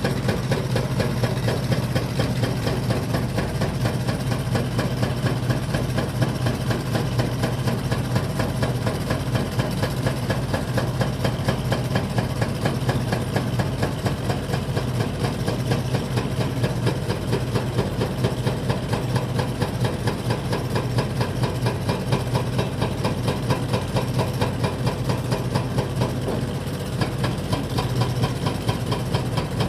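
Diesel engine of heavy construction machinery running steadily at a constant speed, with a fast, even pulse.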